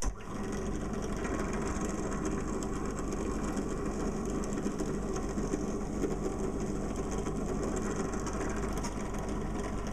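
Small bench drill press running with a steady hum while its bit drills a pilot hole into a wooden strip.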